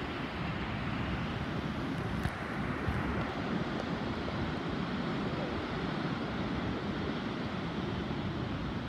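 Steady wind buffeting the microphone, mixed with the distant rumble of big surf breaking.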